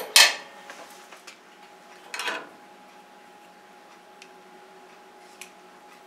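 A sharp metal-on-metal clack as a steel vise and workpiece are set against the bandsaw's metal table, then a short metallic clatter about two seconds in and a couple of faint ticks, over a faint steady hum.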